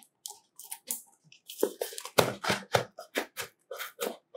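A smartphone's retail box being opened by hand: a run of short crinkles, scrapes and taps of cardboard and plastic packaging.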